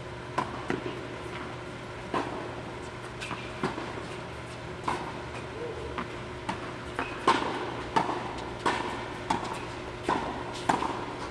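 Tennis balls struck by rackets and bouncing on an indoor hard court during a doubles rally: a serve about half a second in, then a string of sharp pops that echo off the hall, at uneven intervals of roughly half a second to a second. A steady hum runs underneath.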